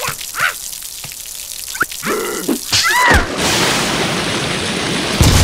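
Cartoon sound effects: a run of short water-drip plinks, about three a second, then a few short squeaky cartoon-voice sounds, then a loud steady rush of noise that builds and jumps louder near the end.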